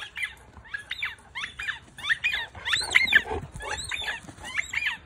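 Dog giving a rapid series of short, high-pitched yips, about two a second, each rising and falling in pitch.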